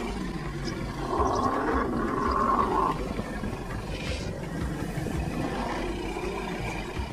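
Leopard growling and snarling in a rough, raspy run, loudest from about one to three seconds in.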